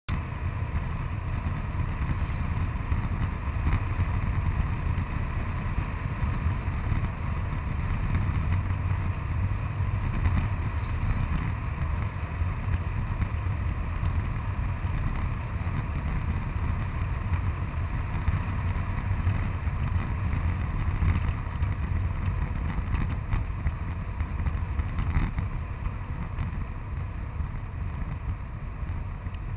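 Van driving steadily at road speed, heard from inside the cab: a steady low rumble of engine and tyres on the road, with a hiss of wind and road noise over it.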